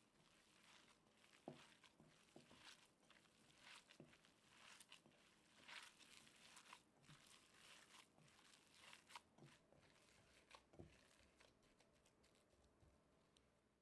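Faint, irregular rustling and crackling: a string of short scrapes and crinkles from hands handling food or material.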